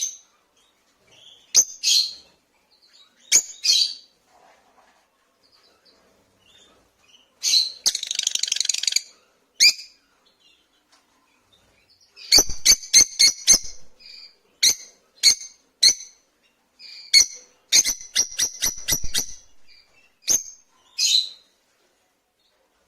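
Rosy-faced lovebirds calling with short, shrill chirps in scattered bouts, including a harsher buzzy call and two quick rapid-fire runs of chirps in the middle and later part.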